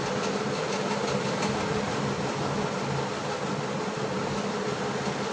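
Steady machine hum with an even hiss, unchanging throughout, of the kind a cooling fan or air conditioner makes.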